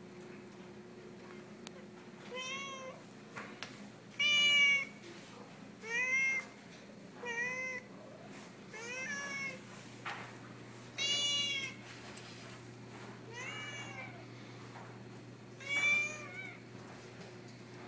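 Cat meowing repeatedly: about eight short meows, each rising then falling in pitch, spaced roughly two seconds apart.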